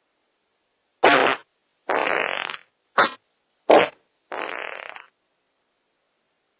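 Five fart sound effects one after another within about four seconds: two short sharp ones and three longer ones.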